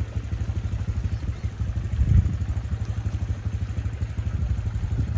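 ATV engine running at low revs, a steady, evenly pulsing low note, with one brief louder swell about two seconds in.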